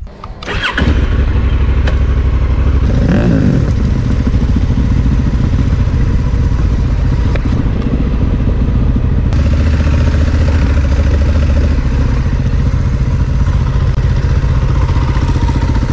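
Motorcycle engine running as the bike rides along a dirt trail. It comes up sharply about a second in and then runs on steadily, with a short rise in pitch around three seconds in.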